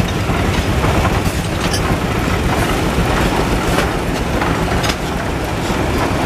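Steam traction engine driving slowly forward under its own power. Its engine and gearing run steadily, with a few scattered clanks.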